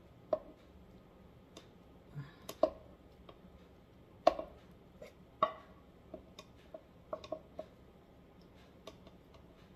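Irregular clicks and knocks of a cooking utensil against a pan and a small container as browned ground sausage is spooned across, the two loudest knocks about halfway through.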